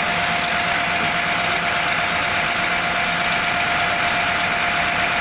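Coach bus engine idling steadily, a constant dense running noise with a steady whine.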